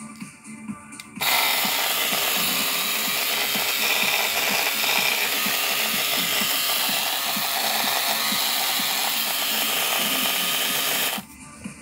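Electric foil shaver switched on about a second in, running with a steady buzz, and switched off near the end.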